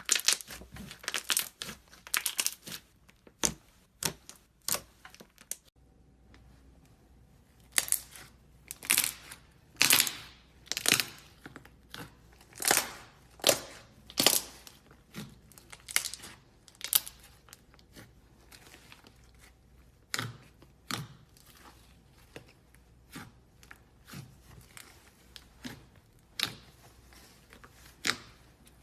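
Slime being squeezed and stretched by hand, making short sticky snaps and crackles at irregular intervals, with a brief pause near the start.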